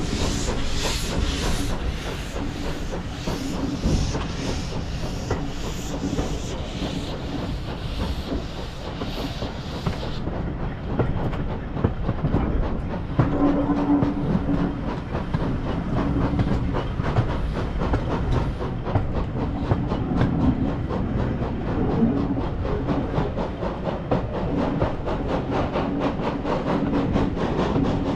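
Steam-hauled train on the move: rhythmic steam exhaust chuffs with hiss for about the first ten seconds, then a steady rumble and clatter of the carriages running on the rails.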